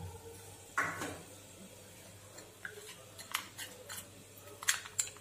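Steel spoon clinking against a small glass bowl while stirring dry spice powders and water into a paste: a single knock about a second in, then a run of light clicks in the second half.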